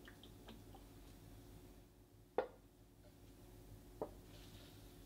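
Bottles of soy sauce and sesame oil being handled over a glass container of seasoning sauce: a few faint ticks of liquid in the first second, a sharp knock about two and a half seconds in, and a lighter knock at about four seconds.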